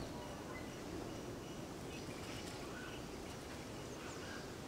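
Outdoor rural ambience: a steady background hiss with a few faint, scattered bird calls.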